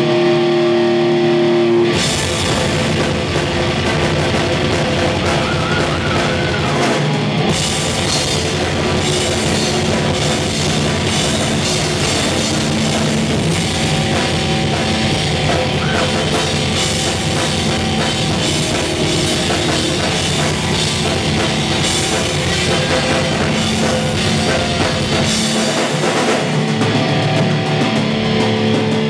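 Rock band playing live, heavy and loud. Electric guitar holds sustained chords alone for about two seconds, then the drum kit comes in and the full band drives on. Near the end the bottom end drops out briefly before the band returns.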